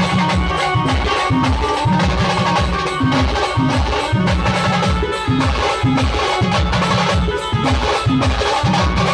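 Live Khandeshi band playing pavari dance music: drums keep a steady beat of about two strokes a second under a held, looping melody.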